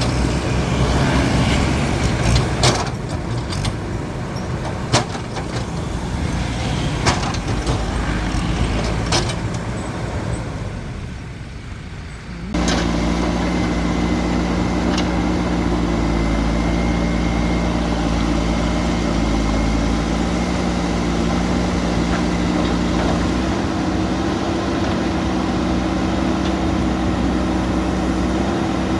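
Heavy diesel machinery with road traffic and scattered sharp knocks. About halfway through the sound cuts abruptly to a steady, even diesel engine drone.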